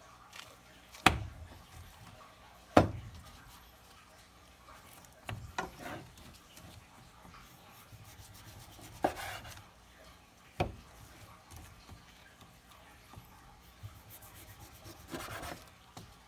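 Knife work and handling of dry-aged beef rib roast on a wooden cutting board: three sharp knocks on the board, about one, three and ten and a half seconds in, between softer rubbing and scraping of the blade through the meat.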